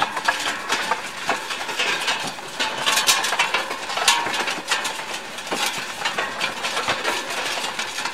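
Wooden handcarts with large spoked wheels rolling over a dirt road, a dense, irregular rattle and clatter of wheels and loaded carts.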